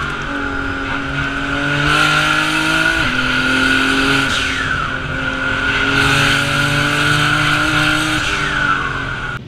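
Race car engine heard from inside the cabin, pulling hard under load; its pitch climbs steadily, then drops abruptly twice, about three seconds in and near the end, as it shifts up.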